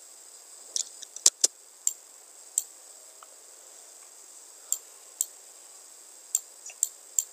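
Computer mouse clicking: about a dozen short, sharp clicks at irregular spacing, bunched in the first two seconds and again near the end, over a steady faint hiss.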